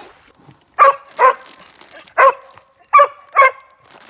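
Small terrier barking five times in short, sharp, high yaps: a quick pair, a single bark, then another quick pair.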